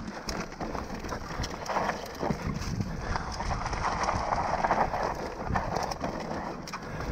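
Mountain bike descending a dry forest trail: tyres crackling over fallen leaves and stones, with many small clicks and rattles from the bike over the rough ground.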